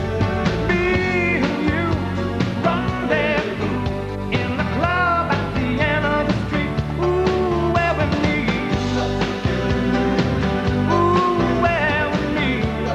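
Rock song playing: a band with a steady drum beat and a wavering lead melody.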